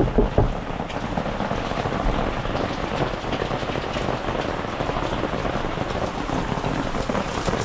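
Steady rain falling, with a few quick knuckle knocks on a wooden door right at the start.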